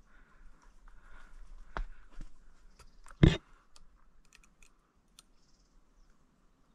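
Clicks and handling noise from an air rifle being raised and aimed, with one sharp, loud knock about three seconds in and scattered small clicks after it.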